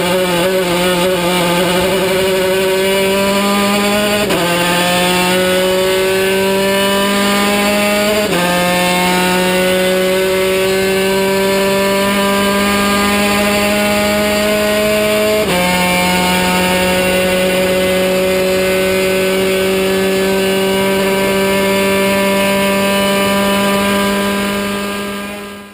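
Top Race Junior race car's engine heard from inside the cockpit under hard acceleration. The pitch climbs steadily and drops sharply at three gear upshifts in the first two thirds. It then holds high and fades out near the end.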